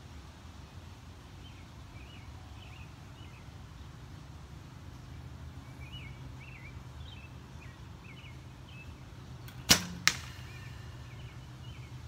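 A recurve bow being shot: a sharp snap as the string is released, followed less than half a second later by a second, slightly softer knock.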